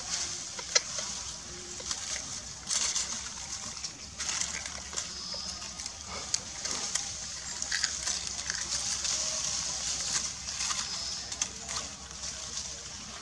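Macaque mother and clinging newborn shifting on dry leaves and rock: intermittent rustling and small sharp clicks over a steady high-pitched background hiss.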